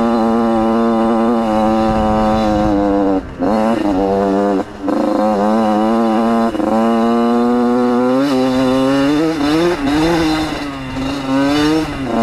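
Yamaha YZ80's two-stroke engine held at high revs, with two brief throttle chops about three and four and a half seconds in, then revs rising and falling repeatedly through the second half.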